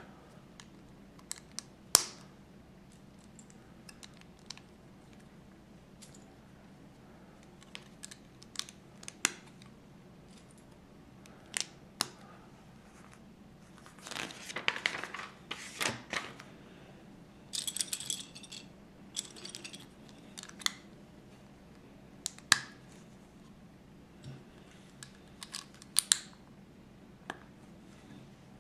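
Plastic Lego bricks being handled and pressed together: scattered sharp clicks, with a couple of longer spells of rattling clicks around the middle.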